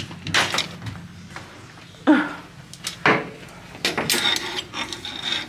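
Handling noise of a camera rubbing against clothing and a dress on a plastic hanger: scattered rustles and a few knocks, over a steady low hum.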